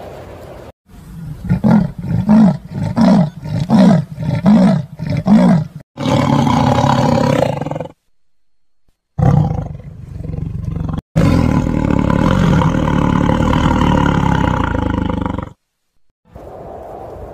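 A large animal roaring: a run of about seven short, deep, evenly spaced grunting calls, then longer roars broken by sudden gaps.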